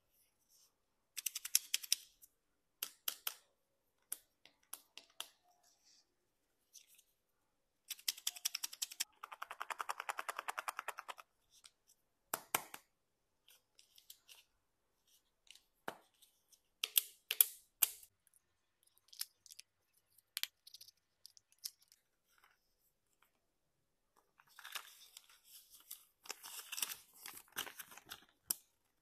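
Hands unwrapping a Kinder Joy egg: short bursts of crinkling and tearing as the plastic-film wrapper is peeled off, with a longer, fast tearing run about a third of the way in. Near the end, rustling and crinkling as the folded paper toy leaflet is opened out.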